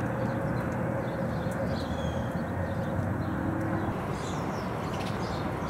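Outdoor street ambience: a steady low rumble of traffic with a faint engine hum, and a few faint bird chirps.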